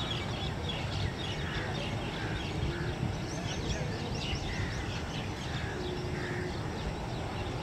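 Many birds chirping and calling, with quick falling chirps repeating throughout and several harsher, rounder calls in between, over a steady low rumble.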